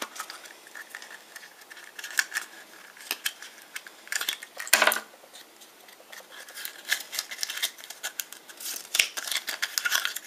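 Small hard-plastic clicks and taps as hands handle the yellow plastic capsule of a Kinder Surprise egg and its tiny toy parts. There is one sharper click about five seconds in.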